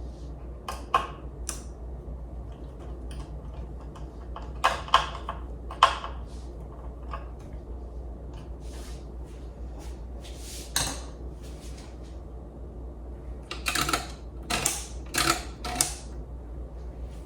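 Scattered clinks and knocks of small metal tools and mixer parts being handled and set down on a hard surface, a busier run of them near the end, over a steady low hum.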